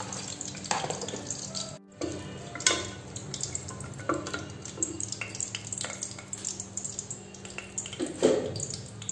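Whole spices sizzling in hot ghee and oil in an aluminium pressure cooker, with a few knocks and scrapes of a wooden spatula against the pot as they are stirred. A steady low hum runs underneath.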